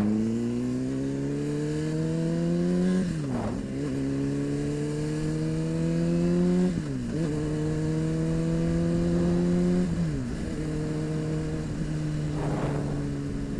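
Honda CBR600RR's inline-four engine accelerating away, its pitch climbing through each gear and dropping sharply at three upshifts, about 3, 7 and 10 seconds in, then holding a steady cruise.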